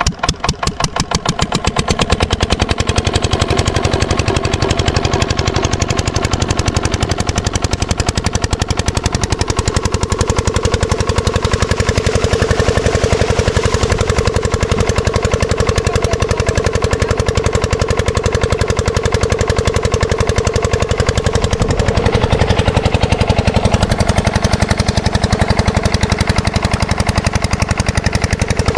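Single-cylinder diesel engine of an 8 hp water pump set catching and picking up speed in the first couple of seconds, then running steadily with a rapid, even chugging.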